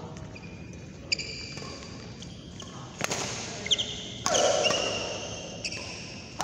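Badminton rally: rackets striking a shuttlecock several times, about a second or so apart, with short high squeaks of players' shoes on the court mat between the hits.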